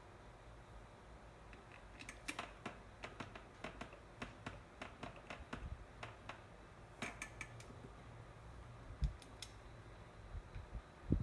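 Irregular light clicks and taps of plastic electric-fan parts being handled and fitted together, with a dull low thump near the end.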